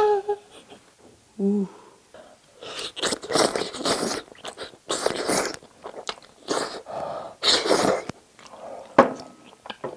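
A person slurping wide Chinese glass noodles (thick sweet-potato starch noodles in spicy braised chicken sauce) close to the microphone: several half-second slurps from about three seconds in, with wet chewing sounds between. A short 'ooh' comes just before the slurping starts.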